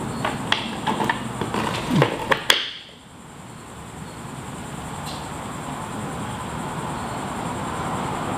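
Several sharp clicks and knocks over the first two and a half seconds, the last one loudest, as a climbing hold is pressed against the wall and set in place, over a steady hum of fans.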